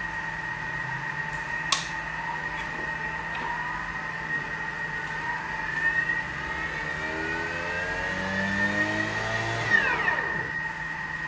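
Thermomix motor and blades spinning up to top speed in a hot, nearly empty bowl to fling the last stock paste off the blades: a whine that rises steadily in pitch for several seconds, then falls away quickly as it spins down about ten seconds in.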